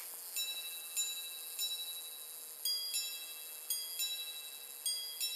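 Minute repeater wristwatch (a recased Patek Philippe) striking on its gongs without the sound box, sounding softer: three single ringing strikes on one gong, then from about halfway paired two-tone strikes on both gongs, the hours followed by the quarters.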